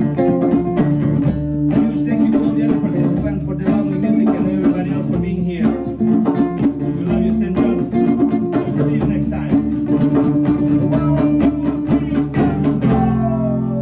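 Live band playing: a strummed guitar keeping a steady rhythm over drums. Near the end the strumming stops and a chord is left ringing as the sound eases off.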